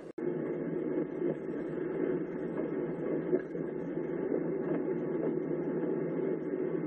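Steady engine and road noise of a car driving on a snowy road, heard from inside the cabin, after a very brief dropout just at the start.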